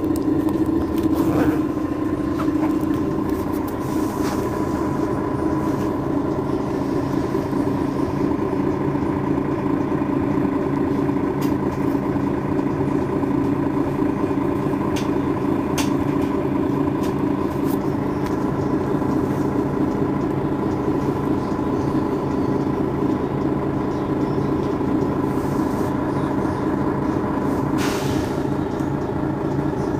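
Mercedes-Benz Citaro facelift city bus's diesel engine idling steadily while the bus stands still, with a steady high whine held over the idle. A few short clicks, and a short hiss near the end.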